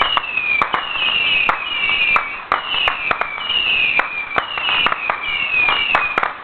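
Whistling ground firework going off: a rapid, overlapping series of short falling whistles, punctuated by sharp crackling pops.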